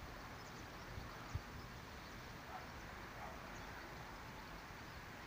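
Faint outdoor background noise with a low rumble, and a single light knock about one and a half seconds in.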